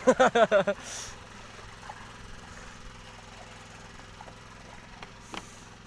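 A small engine running steadily with a low hum. In the first second a person's voice cuts in with a quick run of short syllables.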